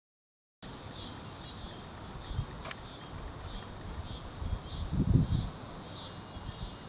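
Outdoor ambience that cuts in after a moment of silence: short high chirps repeating about twice a second from small wild creatures, over a faint hiss. A low rumble swells briefly about five seconds in.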